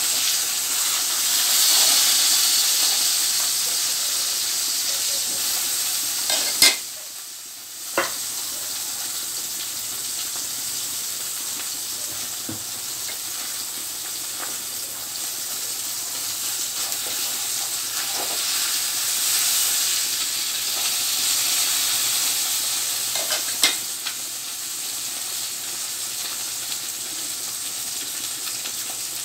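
Pork and chicken adobo in soy sauce and vinegar simmering in a wok over a gas flame, a steady sizzling hiss. A few sharp clicks cut through it, the loudest about seven seconds in.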